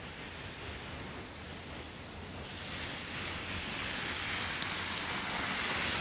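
A car approaching on a snow-covered street, its tyres hissing in the slush, growing steadily louder from about halfway in, over the steady wash of wind and falling snow.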